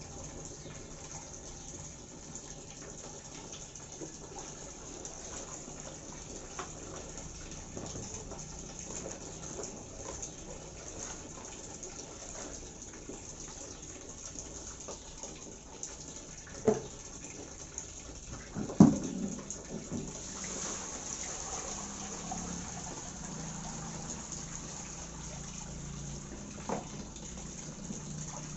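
Water sloshing and splashing as hands wash vegetables in a plastic tub of water. About two-thirds of the way in come two sharp knocks, the second the loudest, as the tub is handled. Near the end, water pours out as the tub is tipped to drain.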